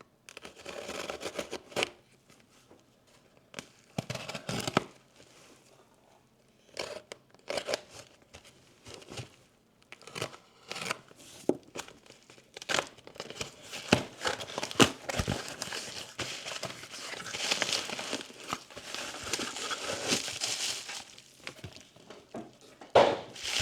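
Plastic packaging crinkling and tearing as a parcel of LiPo battery packs is opened by hand, in scattered bursts at first and then nearly continuous rustling from about halfway on.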